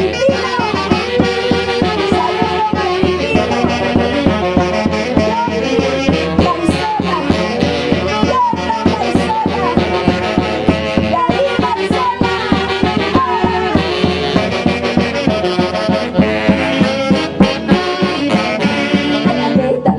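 A live band playing music with a fast, steady beat.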